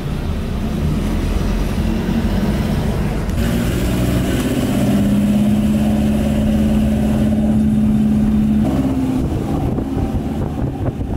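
Engine of a four-wheel-drive hill-service jeep running under load on an uphill climb, heard from inside the cabin with road noise. A steady drone holds through the middle and changes pitch about nine seconds in.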